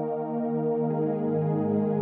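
Slow ambient background music of sustained chords, moving to a new chord about a second in.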